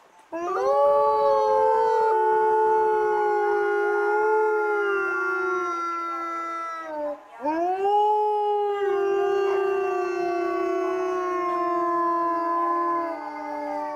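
Two timber wolves howling together, reacting to the zoo's morning public-address announcement: long, overlapping howls at different pitches, which break off briefly about halfway through, then rise again and slowly sink, falling away near the end.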